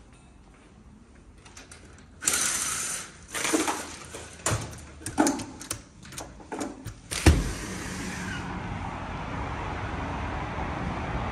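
Vertical blind slats rattling and clacking as they are pushed aside at a sliding balcony door, with a run of clatters ending in a sharp thump. Then steady road traffic noise from outside.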